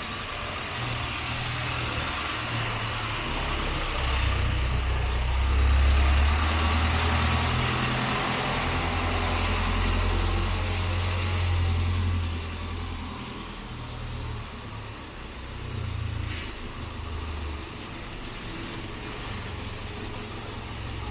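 Street traffic: motor vehicle engines running and idling, with a deep rumble that swells in the middle, over a steady hiss.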